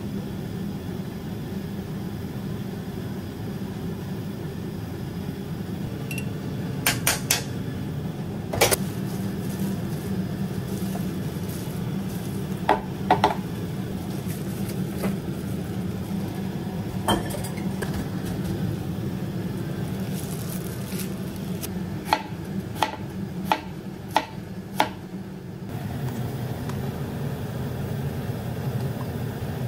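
Scattered sharp clinks of a utensil against a stainless steel bowl as starch is mixed into cooked rice, coming singly and in quick clusters of two to five, over a steady low hum.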